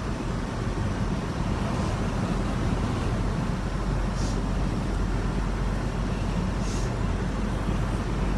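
Steady road and engine noise from inside a moving car's cabin: a low rumble with tyre hiss. Two short whooshes come as oncoming cars pass, about four and seven seconds in.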